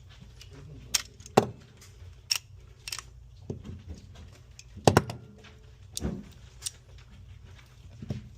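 A series of sharp clicks and knocks at irregular intervals, about nine in all, the loudest about a second and a half in and about five seconds in.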